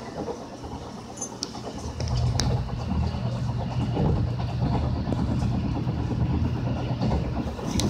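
Taiwan Railways Tze-Chiang limited express train running, heard from inside the carriage as a steady low rumble that grows louder about two seconds in, with a few faint clicks.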